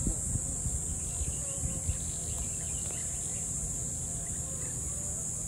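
A steady, high-pitched summer insect chorus buzzing without a break, over a low rumble with a few soft knocks in the first two seconds and faint chirps in the middle.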